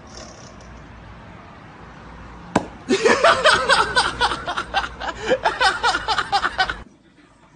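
A rubber toilet plunger dropped from above strikes a man's bald head with a single sharp smack about two and a half seconds in. Loud laughing and shouting voices follow and cut off suddenly near the end.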